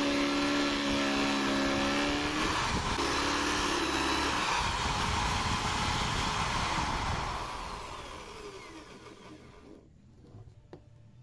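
Drill press running with a Forstner bit, boring a concealed-hinge cup hole into a laminate-faced blockboard cabinet door. About seven seconds in the motor is switched off and winds down.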